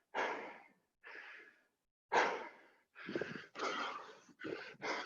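A man breathing hard from the exertion of burpees, in noisy breaths about a second apart. From about three seconds in the breaths come quicker, about two a second.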